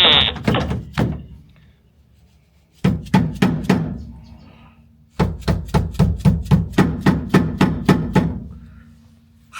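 Hammer tapping the metal tabs of a chrome trim strip into place on the car body. The taps come in two runs of quick strikes, about five and then, after a pause, about fourteen more at roughly four a second.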